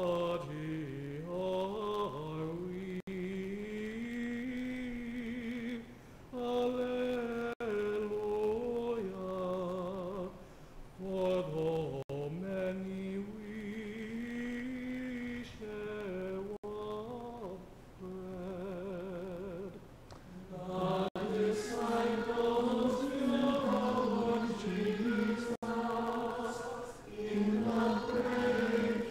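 Choir singing a slow chant on a single melody line, phrase by phrase with short pauses between phrases; the singing grows fuller and louder about twenty seconds in.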